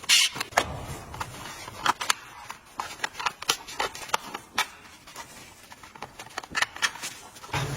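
A run of irregular sharp clicks and light knocks, like tools or metal hardware being handled.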